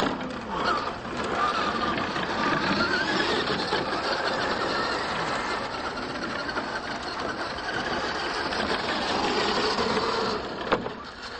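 Radio-controlled trucks' electric motors and gear drivetrains whining as they race over a dirt track, the pitch rising and falling with the throttle. There is a sharp click near the end.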